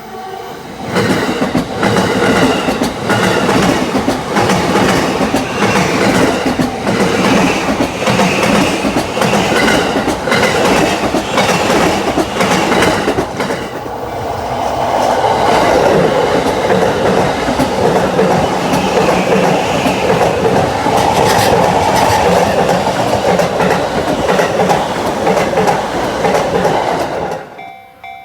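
Yamanote Line electric train passing over a level crossing, wheels clicking rapidly over the rail joints, with the sound changing after a short dip about halfway through. The level-crossing bell rings on as the train noise dies away near the end.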